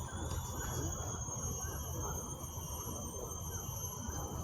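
Insects in forest undergrowth droning steadily in several unbroken high-pitched tones, over a steady low rumble.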